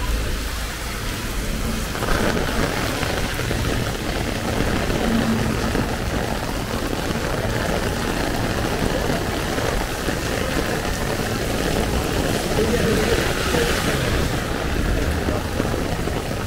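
Heavy rain pattering on an umbrella overhead over a steady hiss of rain on the wet street. It swells briefly twice.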